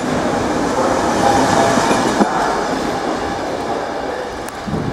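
ČD passenger coaches of a departing train rolling past at low speed: a steady rumble of wheels on rail that slowly fades as the train draws away, with faint wheel squeal on the curving track.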